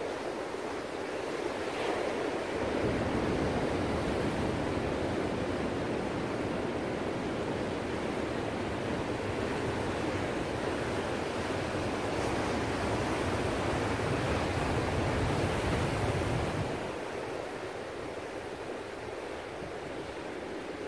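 Ocean surf: waves breaking and washing in a steady hiss of foaming water. It swells a couple of seconds in with a deep rumble and eases back about four seconds before the end.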